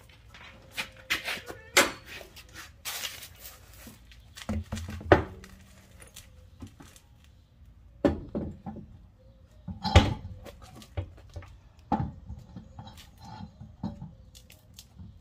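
Irregular knocks and clunks with scraping as a Jeep Wrangler's road wheel and tire are handled and fitted onto the front hub by hand. A short hiss comes about three seconds in.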